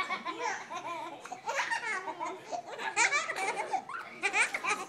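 Toddlers laughing in short, high-pitched bursts while being given raspberries.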